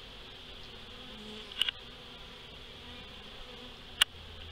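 Honeybees buzzing around the entrance of a freshly stocked hive, still agitated after being moved in, over a steady high-pitched background drone. Two sharp clicks, about a second and a half in and near the end.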